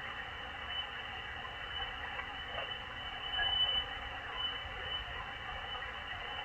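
Malachite DSP SDR receiver hissing with steady shortwave static, the noise of an open sideband channel between transmissions, with a faint swell about halfway through.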